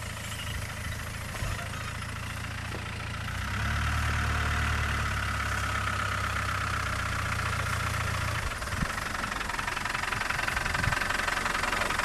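Land Rover Discovery's 200Tdi 2.5-litre four-cylinder turbo-diesel engine idling steadily, growing louder about a third of the way in.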